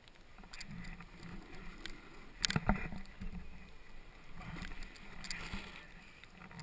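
Snowboard sliding and carving over fresh snow, its edge scraping in uneven swishes, with two sharp knocks close together about two and a half seconds in.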